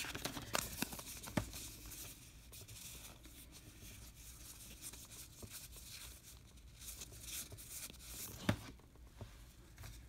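Faint rustling and light clicks of a stack of cardboard trading cards being handled and shuffled, with a sharper tap about eight and a half seconds in.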